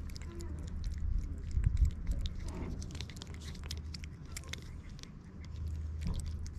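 A cat licking and lapping lickable paste treat from a squeeze tube held at its mouth: a steady run of quick, wet tongue and mouth clicks over a low rumble, with a louder low thump about two seconds in.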